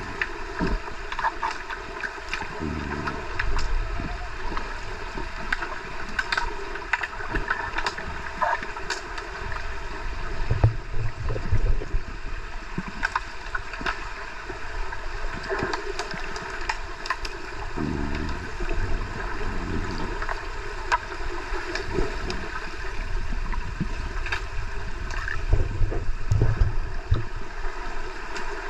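Underwater sound of a swimming pool during an underwater hockey game, heard through a submerged camera: a steady muffled rush of water with scattered sharp clicks and knocks, and low churning swells now and then as players with fins swim past.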